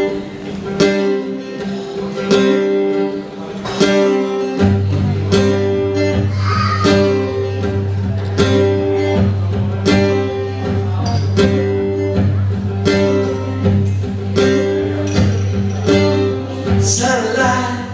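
Instrumental intro of a song: a strummed acoustic guitar in a steady rhythm, with a low bass part coming in about four and a half seconds in.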